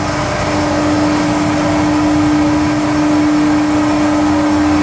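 Steady hum of a machine-shop floor with CNC machining centres running: a constant mid-pitched drone over an even hiss.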